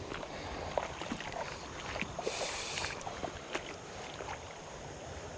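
Steady rush of river water, with scattered light clicks and taps and a brief higher hiss a little after two seconds in.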